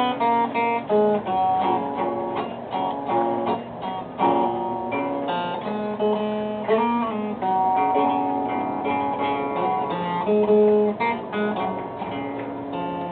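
Acoustic guitar music, plucked and strummed, with a run of changing notes throughout.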